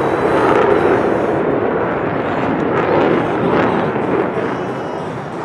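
Loud jet noise from F-16 fighter engines flying past, a dense rumbling roar that fades gradually through the second half.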